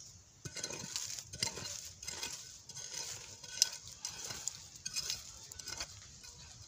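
Small metal hand trowel scooping and scraping dry, gritty soil and tipping it over the roots to backfill them: a run of short, irregular scrapes with a few sharp metallic clicks.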